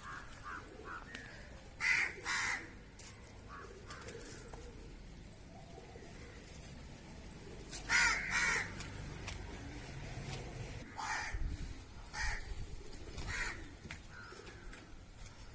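Crows cawing: a series of harsh caws, with two quick caws about two seconds in and two more about eight seconds in, then single caws a few seconds apart and fainter calls in between.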